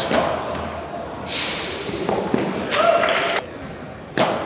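Padel ball struck by rackets in an indoor hall: a sharp hit right at the start and another about four seconds in, each followed by a short echo. In between there is a brief hiss and a short call from a player.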